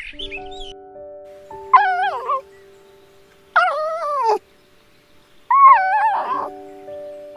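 Red fox giving three whining yelps about two seconds apart, each wavering in pitch and falling at the end, over background music of held notes.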